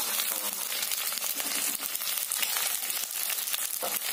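Sliced onions frying in hot oil in a wok, a steady sizzle with a dense crackle.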